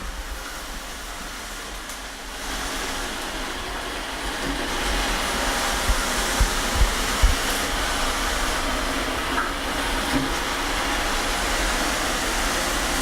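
iLife A4s robot vacuum cleaner running: a steady whirring hiss from its suction fan and brushes, which gets louder about two seconds in. A few soft low thumps come around the middle.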